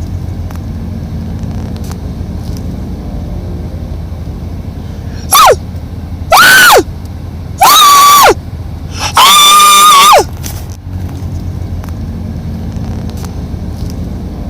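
A pet animal calling loudly four times, one short call and then three longer ones, each held at a steady high pitch and dropping sharply at the end, over a steady low hum.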